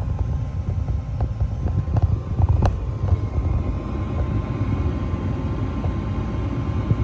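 Gas furnace starting up after a control-board replacement: a steady low rumble, typical of the draft inducer motor running ahead of ignition, with a sharp click about two and a half seconds in.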